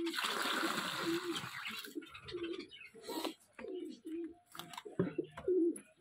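Domestic pigeons cooing: many short, low, repeated coos overlapping one another, with a brief rushing noise in the first two seconds.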